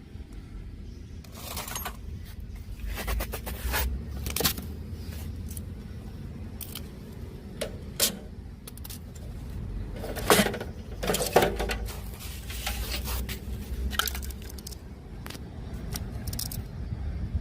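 Irregular clicks, knocks and short scrapes of small metal parts and tools being handled during a repair, loudest in a cluster about ten seconds in, over a steady low hum.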